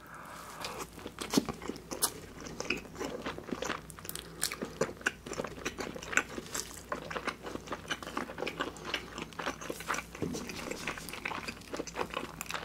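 A person chewing a mouthful of a Burger King Guinness Whopper with thick-cut bacon: a steady run of irregular crunching clicks from the chewing.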